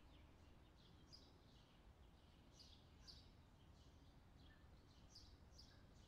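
Faint outdoor summer ambience: scattered short, high bird chirps over a low, steady background rumble.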